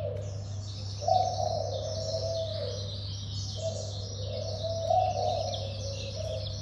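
Birds calling. A low call repeats in drawn-out notes of about a second each, with dense high chirping and twittering over it. A steady low hum runs underneath.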